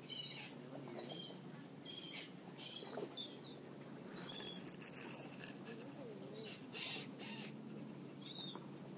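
Birds calling: a run of short, high chirping calls, roughly one a second, with a longer gap in the middle and one more near the end.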